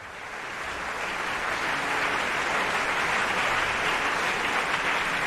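Large concert audience applauding, a dense steady clatter of clapping that fades in over the first second or so.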